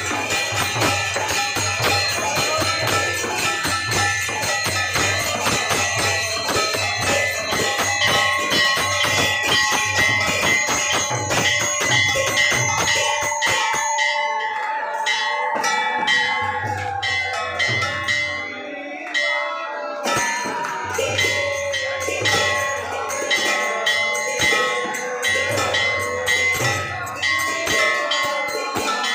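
Devotional temple music with bells ringing continuously over jingling percussion and a low pulsing drumbeat. A long held note sags in pitch about halfway through.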